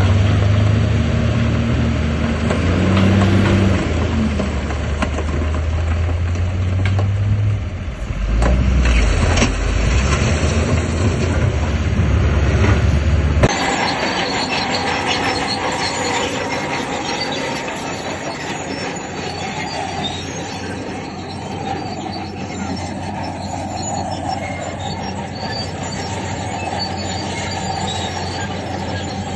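Bulldozer at work: its diesel engine runs heavily under load, with metallic squealing and clanking typical of steel crawler tracks. About thirteen seconds in, the sound cuts abruptly to a lighter, even machine noise without the deep engine tone.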